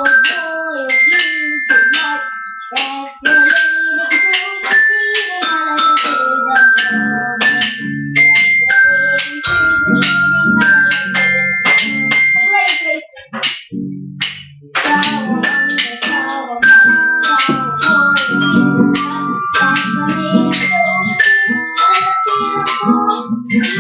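Instrumental music of struck, ringing mallet-percussion notes, xylophone- and glockenspiel-like, with lower notes joining in about seven seconds in and a short break near the middle.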